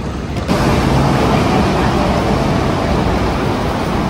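Steady rumble and rush of a vehicle running, with a low hum, cutting in suddenly about half a second in.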